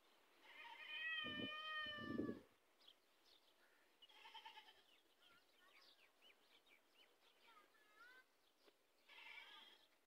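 A young camel bleating: one high, wavering call about two seconds long near the start, then two shorter calls later. Faint bird chirps come between the calls.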